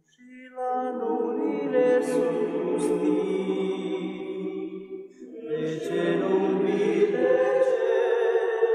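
A slow song with sustained, chant-like singing in two long phrases, breaking briefly about five seconds in.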